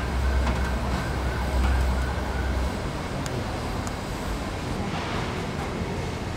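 Horseshoe crabs on a charcoal grill: a steady hiss with a few faint crackles, under a low hum that stops about two and a half seconds in.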